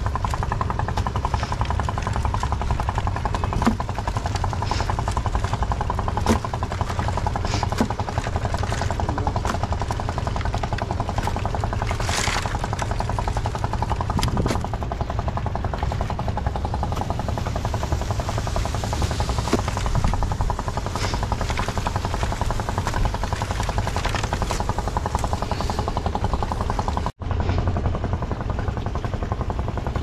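A small engine running steadily, a fast even putter under a constant drone, with a few light knocks over it; the sound drops out for a moment near the end.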